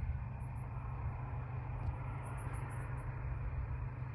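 Night insects, crickets, chirping high-pitched in short pulsing bursts every second or two over a steady low rumble.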